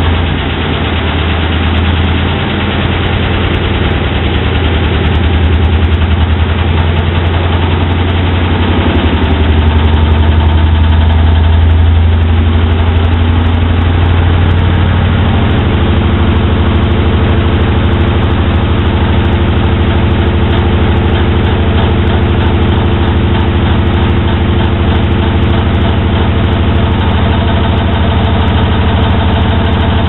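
Asko W6567 front-loading washing machine on its spin cycle, running with a loud, heavy low drone from violent vibration. Its hum settles into a steadier tone about halfway through. The abnormal shaking on spin is a fault the owner found in two units of this model.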